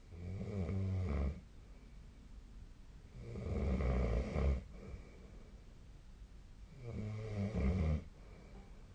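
A sleeping person snoring: three low-pitched snores, each a second or so long, coming about every three and a half seconds.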